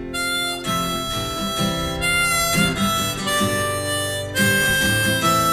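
Background music: a harmonica playing a melody of held notes over guitar accompaniment.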